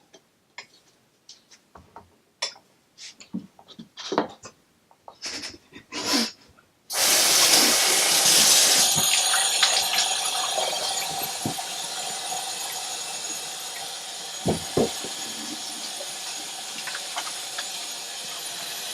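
Scattered clicks and knocks of kitchen things being handled, then a kitchen tap is turned on about seven seconds in and water runs steadily into the sink, loudest at first and easing off a little.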